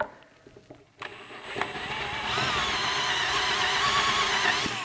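Cordless drill boring into a plastic rifle stock: the motor speeds up about a second in, then whines steadily under load and stops just before the end.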